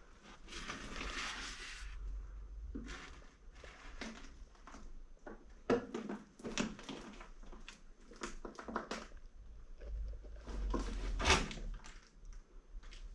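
A person walking outdoors: irregular footsteps on rough ground, with a low wind rumble on the microphone.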